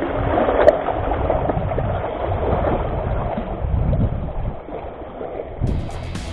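Sea water sloshing and washing among breakwater boulders, with one sharp click early on; music comes in near the end.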